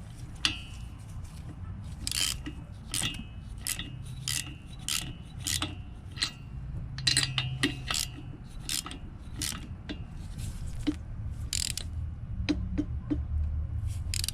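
Socket ratchet clicking, stroke by stroke, as a new spark plug is run in and tightened in a pit-bike engine's cylinder head; the sharp clicks come about one or two a second with short pauses.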